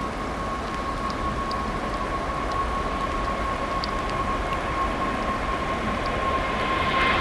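Airbus A380 jet engines at takeoff thrust: a steady roar with a thin steady whine running through it, growing slightly louder near the end.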